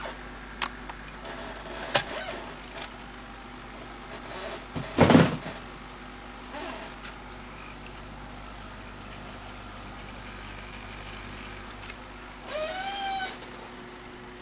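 A powered hexapod robot's servos humming steadily while holding the lifted stance under load. Scattered knocks and clicks, one louder thump about five seconds in, and a short wavering whine near the end.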